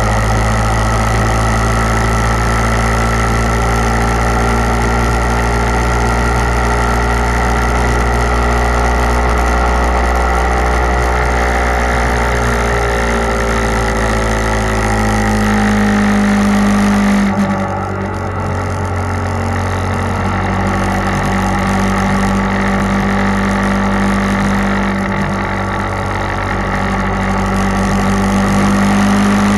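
Motorcycle engine running at road speed, heard from a camera on the moving bike. The engine note shifts gradually through the middle, dips briefly a little past halfway, then holds steady again, with a slight swell near the end as an oncoming pickup truck goes by.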